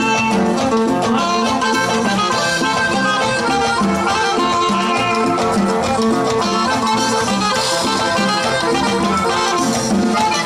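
Live norteña dance music from a band: accordion melody over a bouncing, evenly repeating bass line, played loud and steady.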